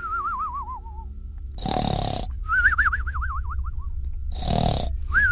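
Comic cartoon-style snoring: a rough snore in, then a wobbling whistle that falls in pitch on the way out. It repeats about every three seconds: two snores and three whistles, the last whistle starting near the end.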